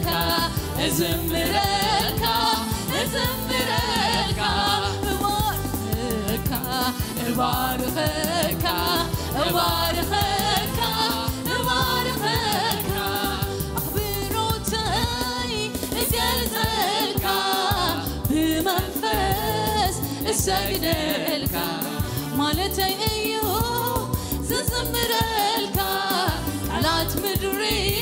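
Tigrinya gospel worship song: a woman sings lead on microphone while a choir sings along, backed by musical accompaniment.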